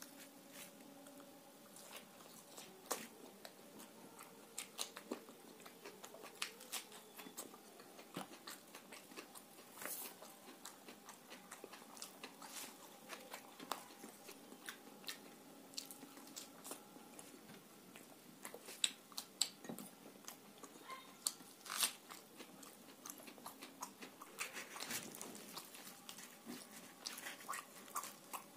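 Eating sounds of a man chewing luchi (fried puri) dipped in egg curry and aloo dum: wet chewing and mouth smacks with many irregular sharp clicks, loudest a little past halfway.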